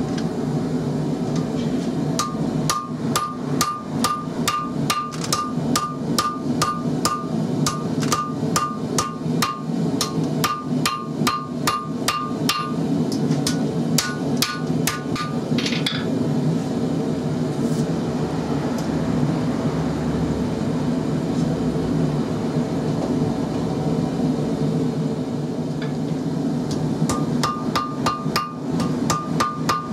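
Hand hammer striking red-hot XC75 carbon steel on an anvil to forge a knife blade, a quick, even run of blows about two to three a second with the anvil ringing after each. The hammering stops for about ten seconds in the middle, then starts again near the end.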